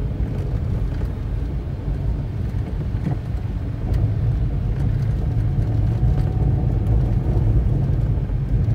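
Car engine and tyre noise heard from inside the cabin while driving: a steady low rumble that gets a little louder about four seconds in.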